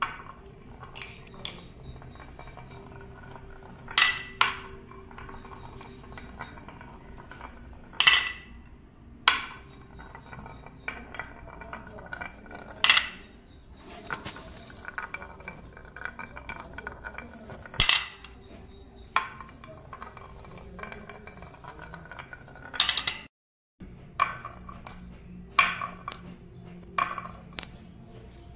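Glass marbles rolling along a wavy groove carved in a wooden board, rattling as they go. Every few seconds comes a sharp clack as a marble knocks into the others or against the plastic toy block.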